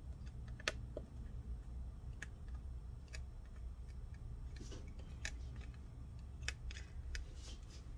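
Irregular small clicks and crackles as leftover black foam adhesive is peeled by hand off the inside of a MacBook Pro's metal case, over a low steady hum.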